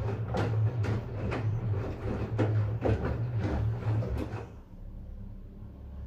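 LG DirectDrive front-loading washing machine turning its drum with a small load, the laundry knocking about twice a second over a low motor hum. The drum stops about four and a half seconds in, leaving a quieter hum.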